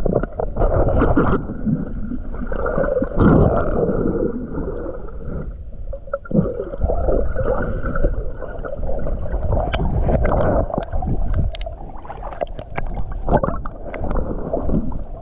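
Muffled underwater sound of a shallow seawater rock pool, heard through a submerged camera: a low rumble and gurgle of moving water with scattered crackling clicks, which come more often in the last few seconds.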